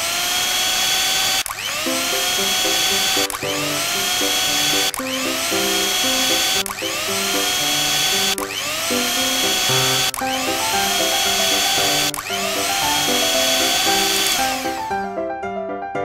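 Battery-operated toy blender's small motor whirring in repeated surges about every two seconds, each rising in pitch as it spins up, then winding down and stopping near the end. Background piano music plays under it.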